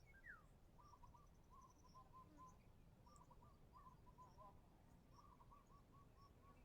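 Faint birdsong: a short falling whistle near the start, then a repeated warbling phrase about every two seconds, with thin high chirps over a low background hiss.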